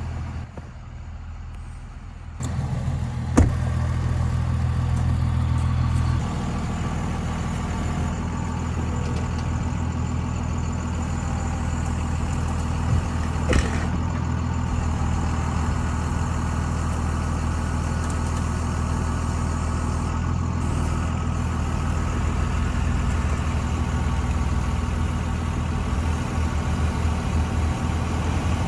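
A vehicle engine idling steadily, with two sharp clicks, one a few seconds in and one about halfway through.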